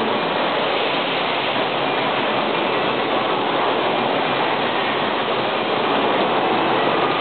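Steady factory-floor noise around a robotic welding line: an even, dense hiss of plant machinery and robots running, with no distinct weld bangs or clunks standing out.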